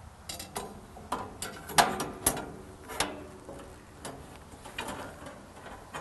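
Steel bandsaw blade of a Woodland Mills HM126 portable sawmill being handled back onto its band wheel: irregular metallic clicks and clanks, a few ringing briefly, the loudest about two seconds in.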